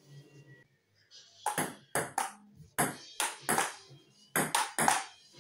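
Table tennis rally: the ball clicks sharply off the paddles and the table in quick alternation, about three clicks a second, starting about a second and a half in.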